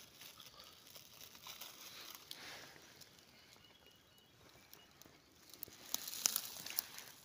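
Dry leaf litter and twigs rustling and crackling in irregular small crackles, with a louder cluster of crackles about six seconds in.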